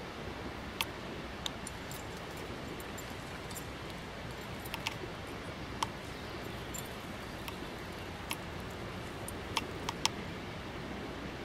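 Steady outdoor background hiss with about ten small, sharp clicks and taps at irregular intervals, a few of them close together near the end.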